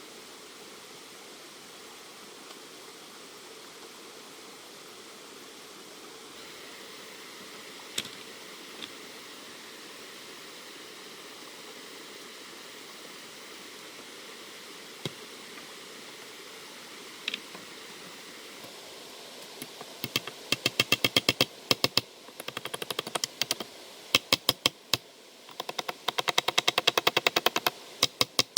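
Steady background hiss with a few lone clicks, then, about two-thirds of the way in, fast runs of sharp, evenly spaced knocks or taps, several a second, in bursts with short breaks.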